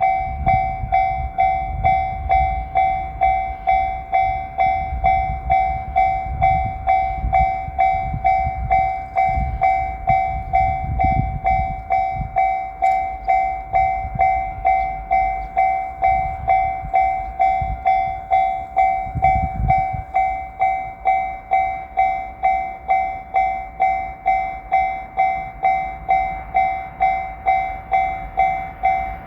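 Japanese level-crossing warning bell ringing steadily, about one and a half dings a second. Under it, for roughly the first twenty seconds, is the low rumble and wheel clatter of a JR Shikoku 8000 series limited express train going over the crossing.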